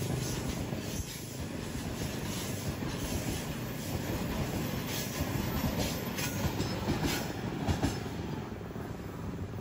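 Freight wagons of a coal train passing at speed: a steady rolling rumble of steel wheels on rails, with irregular clacks as the wheels cross rail joints.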